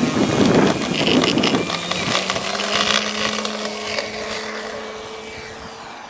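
Radio-controlled model airplane taking off: loud and noisy at first as it runs past close by, then a steady hum from its motor and propeller from about two seconds in, fading as it climbs away.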